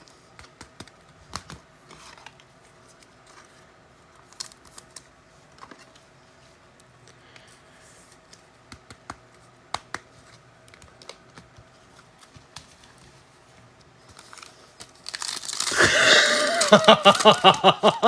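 Sports trading card packs and cards being handled: scattered light clicks, taps and crinkles of foil wrappers. Near the end comes a loud rush of noise, then a man's pulsing laugh.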